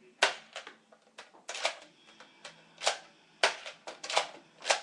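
A series of sharp, irregularly spaced clacks and knocks, about seven in under five seconds, from Nerf Vortex disc blasters being handled, primed and fired.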